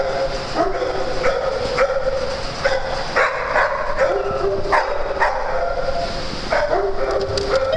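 Several small dogs barking in short, sharp yips, again and again, over a continuous high whine.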